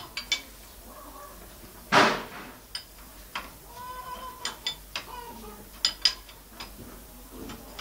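Hand wrench working on the bolts of a Fiat 450 tractor's engine: scattered sharp metallic clicks and clinks, with one louder clank about two seconds in.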